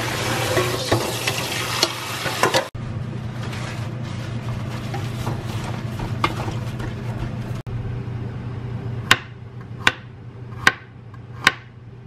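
Tap water running hard over chicken gizzards in a metal colander, cutting off about three seconds in. Then paper towels rustling as they are pressed onto the gizzards over a steady low hum, and near the end a kitchen knife chopping garlic cloves on a cutting board, four sharp chops about a second apart.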